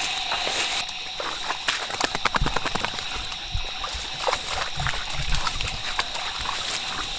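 Footsteps sloshing through shallow swamp water and pushing through brush, a run of rustling clicks and soft splashing thuds, over a steady high-pitched night insect chorus.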